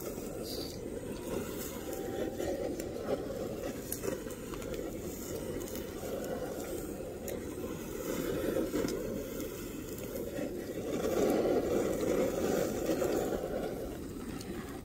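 Handheld butane torch blasting its flame into a small bucket barbecue grill to fire it up: a steady rush of flame, louder for a couple of seconds near the end, then shut off.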